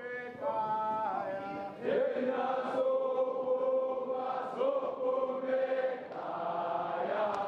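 Gwijo: a large group of schoolboys' male voices chanting and singing together in long held notes, a new phrase starting every couple of seconds.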